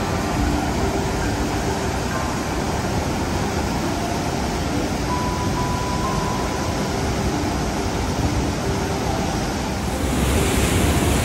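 Steady rushing of a waterfall, with faint, sparse music notes over it. Near the end the rush turns brighter and slightly louder.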